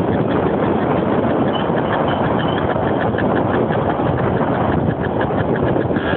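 Small quad bike's engine running steadily while the ATV travels along the road.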